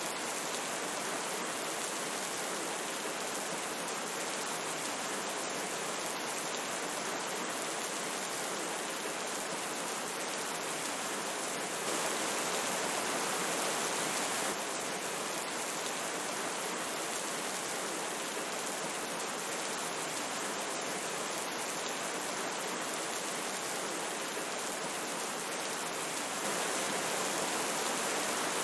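A river flowing steadily, with rain falling: an even, unbroken rush of water that swells slightly for a couple of seconds about twelve seconds in and again near the end.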